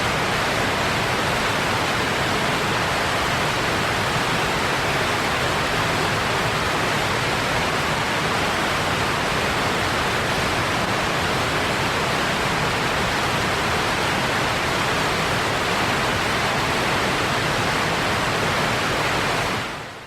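Wheat grain pouring into a silo: a steady, dense rushing hiss of falling kernels that fades out at the end.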